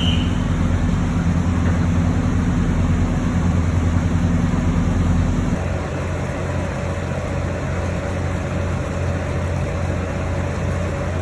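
High-speed catamaran ferry's engines running with a steady, loud low drone. About halfway through the deep hum drops off and a lighter, steady hum with a faint higher tone remains.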